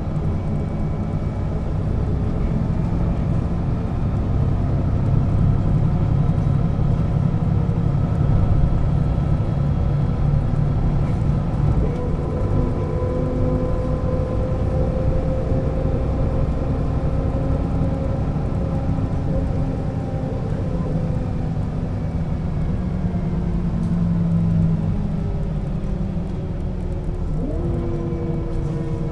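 1996 Setra S 315 UL bus's diesel engine and ZF gearbox under way: a steady low rumble with a whine that slowly rises in pitch through the middle. Near the end there is a quick rise and drop in pitch.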